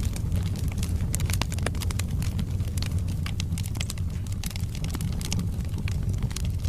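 Wood logs burning in a fireplace: a steady low rumble of the fire with frequent sharp crackles and pops.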